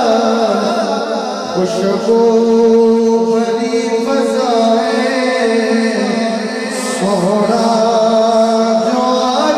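A man singing a devotional naat into a microphone, holding long notes and bending them in wavering melodic turns. The longest held note runs from about two seconds in to about four and a half.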